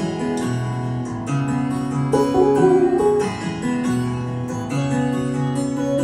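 Music: a plucked-string melody over a bass line, with notes changing in a steady rhythm.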